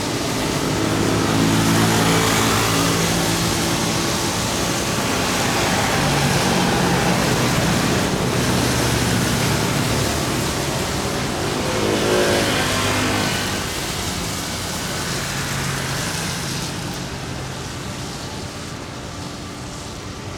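Jet airliner engines roaring as an aircraft passes. The roar swells early on, swells again about twelve seconds in, then fades gradually.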